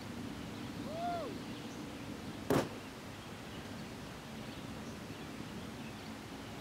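A single rifle shot from a scoped bolt-action rifle fired off a bipod, a sharp crack about two and a half seconds in with a short echo tail. About a second earlier, a short call rises and then falls in pitch over a steady outdoor background.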